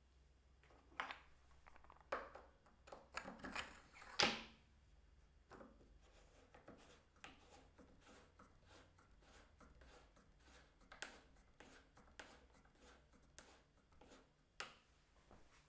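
A wooden holdfast clamp is handled on a hardwood workbench, set in an aluminium tube in a bench hole: a few sharp knocks and clicks in the first four seconds, then a long run of faint small clicks and scrapes. This is the clamp being worked and slipping, because the smooth tube gives it too little friction.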